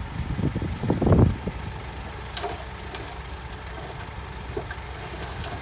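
Heavy diesel engine of earthmoving machinery running with a steady low rumble, with a brief louder surge about a second in.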